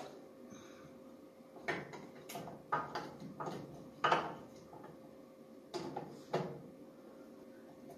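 Short metal knocks and clicks, about seven, as the stator plate is handled and fitted onto a 1970s Ski-Doo Rotax snowmobile engine, over a faint steady hum.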